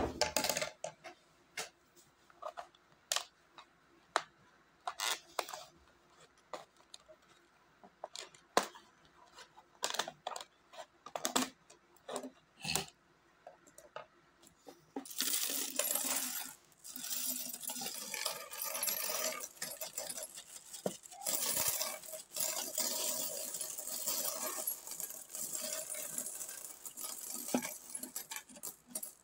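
Philippine peso coins dropped one at a time into a plastic bottle, a separate clink about every second. About halfway through, a long run of dense jingling and clattering as many coins are spilled and spread over a table.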